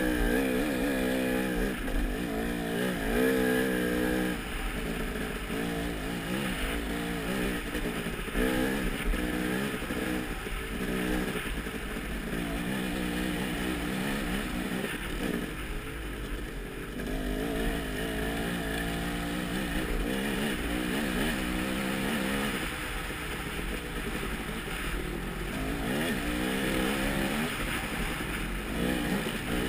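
Dirt bike engine being ridden hard, its pitch repeatedly climbing and dropping back every second or two as the throttle opens and closes, over a steady low rumble.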